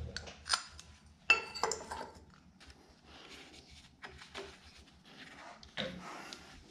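Hand tools clinking against metal engine parts while front accessories are bolted back on: a sharp metallic clink a little over a second in, then a run of lighter irregular clicks from a ratchet wrench turning bolts, and another clink near the end.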